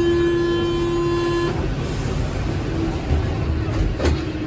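Métro train's door-closing warning buzzer, a steady pitched buzz that stops about a second and a half in, over the low rumble of the train. A sharp knock comes near the end.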